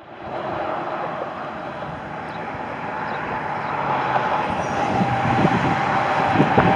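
Steady outdoor noise: an even hiss with a faint held tone, slowly getting louder.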